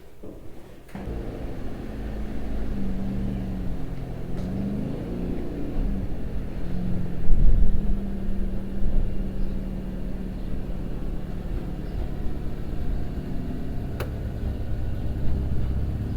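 Car engine running on the move, low and steady, its pitch wavering a few seconds in, with a loud thump about seven and a half seconds in and a sharp click near the end.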